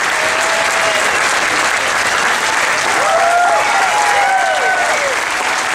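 Large audience applauding in a standing ovation, with whoops and cheering voices rising over the clapping about three seconds in.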